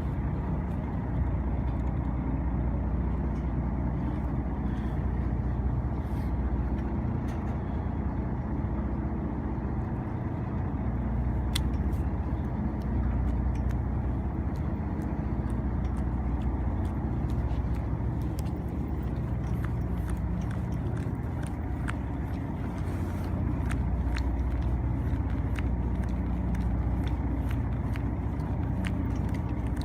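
Fishing boat's engine running steadily, a low rumble that swells and eases slightly over the half-minute, with faint scattered ticks on top.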